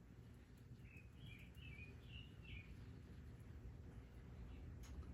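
Faint bird chirping: a short run of quick chirps about a second in, over a quiet low hum, with a faint click near the end.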